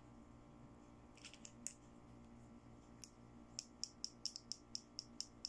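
Pink plastic toy styling tool with scissor-style ring handles clicking as it is squeezed open and shut: a few scattered clicks, then about a second and a half later a quick even run of sharp plastic clicks, about four a second.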